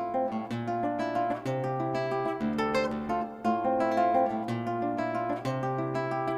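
Solo acoustic guitar playing an instrumental piece: plucked melody notes ring over a bass note that changes about once a second.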